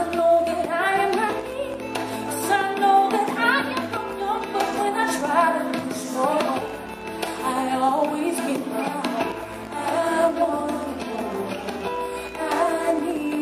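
Music: a woman singing melodic, gliding vocal lines over a band with bass.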